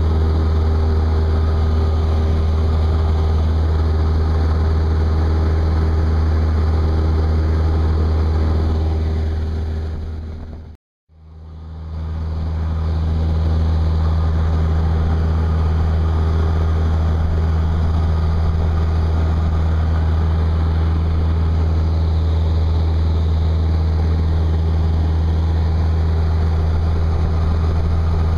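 Steady drone of a light aircraft's engine and propeller heard inside the cabin in cruise, strongest in its low tones. It fades out to a brief silence and back in about eleven seconds in.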